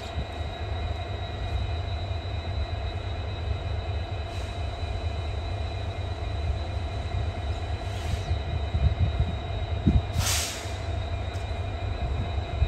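Trains in a railway station yard: a steady low rumble with a steady whine over it, and a short hiss about ten seconds in.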